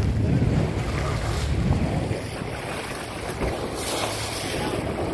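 Wind buffeting the microphone over the steady rush of sea water along a moving boat's bow.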